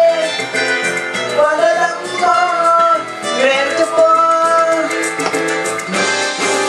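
Music: a song with a sung melody over guitar accompaniment.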